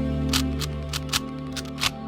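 Intro music of sustained, ambient tones, with a quick, uneven run of sharp clicks over it, about six in two seconds.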